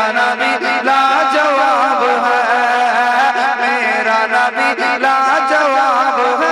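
Man singing a naat, a devotional chant to the Prophet, into a microphone, with a long melodic line that keeps gliding up and down.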